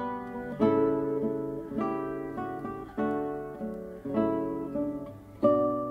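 Background music on acoustic guitar: plucked chords struck about once a second and left to ring.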